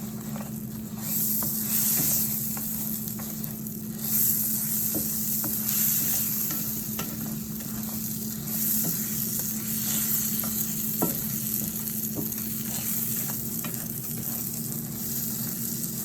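Rice-A-Roni sizzling in butter and oil in a pan while it is stirred to toast, with scattered taps and scrapes of the spoon on the pan. The sizzle swells several times.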